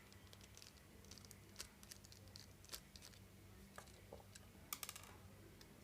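Near silence: faint, scattered small clicks and ticks of a jeweller's screwdriver and plastic phone casing being handled while screws are taken out, over a faint steady low hum.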